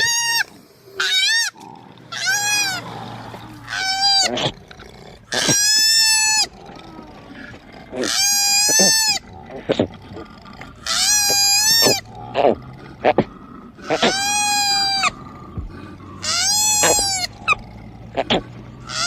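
A koala giving a series of high-pitched squealing cries, about nine calls each up to about a second long, every two to three seconds. Each call rises and then falls in pitch.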